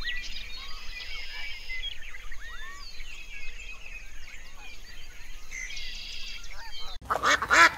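Small birds chirping and twittering with many quick, short calls mixed with buzzing trills. Near the end it cuts abruptly to a duck's loud, rapidly repeated quacking.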